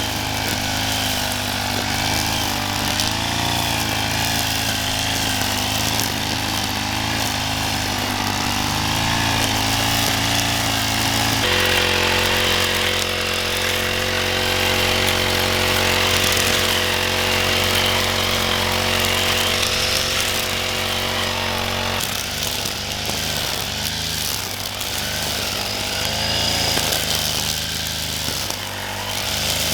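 Chainsaw engine running continuously, its pitch wavering as the load changes, with two abrupt shifts in its note partway through.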